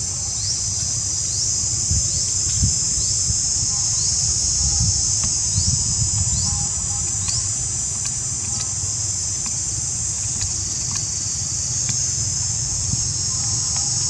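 Steady high-pitched insect chorus in undergrowth, with a short rising chirp repeating about once a second through the first half, over a low rumble.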